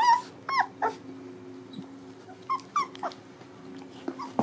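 Young puppies whining: about seven short, high whimpers spread over a few seconds, several falling in pitch. The owner takes the whining for hunger.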